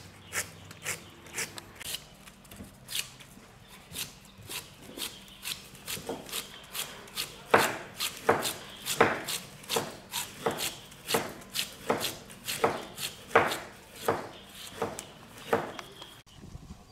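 Long knife shaving the rind off a pineapple against a plastic cutting board, in repeated slicing strokes that quicken to about two a second around halfway.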